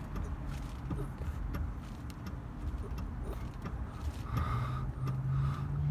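2021 Volkswagen Atlas running with a steady low hum, a few faint clicks, and a faint higher tone joining about four seconds in.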